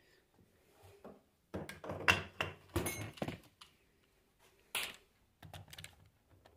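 Irregular metal clicks, knocks and light clatter as a part of a Bosch alternator is worked loose and pulled out by hand, busiest in the first half, with one sharper clack near the end.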